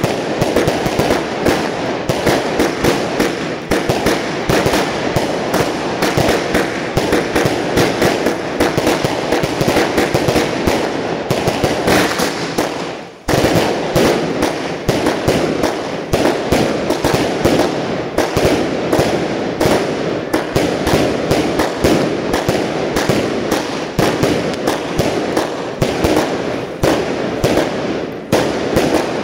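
Box-fired (a cassette) fireworks display: a dense, unbroken volley of rapid bangs and crackles from shells bursting. The firing breaks off for a moment about thirteen seconds in, then resumes at once at full density.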